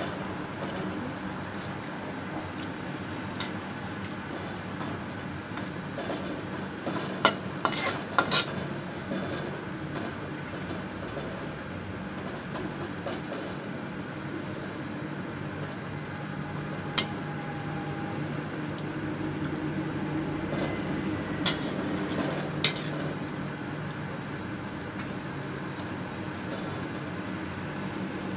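Udon noodles, carrots and chicken sizzling and bubbling in a wok with a little broth while a utensil stirs and separates the noodles. A few sharp clicks of the utensil against the wok come about seven to eight seconds in, and single ones later.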